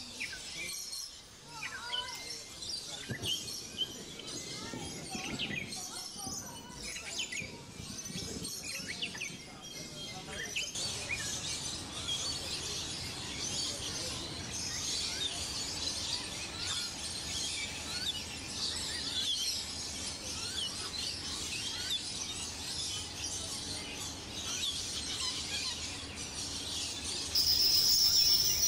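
Birds chirping and twittering in many short, overlapping high calls, growing denser about a third of the way in. Near the end a louder, steady high-pitched tone comes in.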